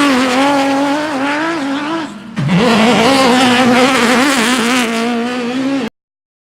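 Off-road race vehicle's engine held at high revs, wavering slightly, with a brief lift-off about two seconds in before it comes back on. The sound cuts off suddenly near the end.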